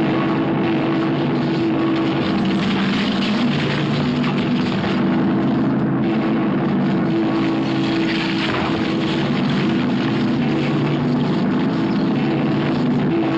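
A giant metal bell rolling and tumbling down a rocky hillside: a continuous heavy rumble with sustained low humming tones.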